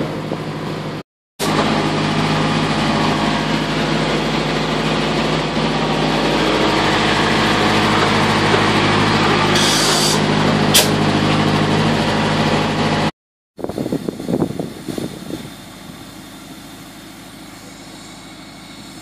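An engine running steadily, a low drone with a steady hum, broken off twice by abrupt cuts, about a second in and about two-thirds of the way through. After the second cut it is much quieter, with a few short knocks.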